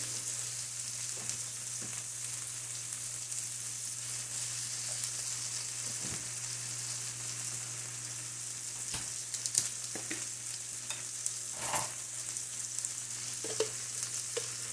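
Marinated pork slices with onion, garlic and carrots sizzling steadily in a hot frying pan, over a steady low hum. A few brief faint clicks come through in the second half.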